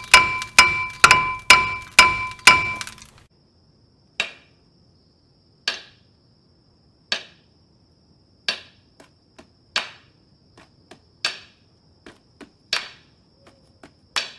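Hammer blows on a brake rotor rusted fast to the wheel hub, struck to knock it loose. For the first three seconds the blows come quickly, about two a second, each with a bright metallic ring. After that they are slower single blows about every second and a half, with lighter taps in between.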